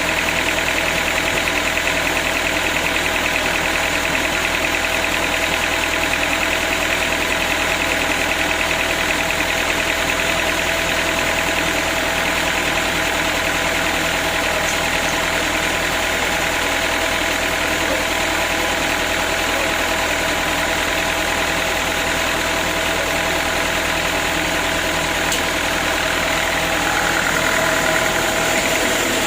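Sawmill machinery running steadily, a continuous engine-like hum with several held tones and no sharp breaks.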